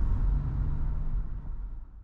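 Car driving, a steady low road and engine rumble that fades out near the end.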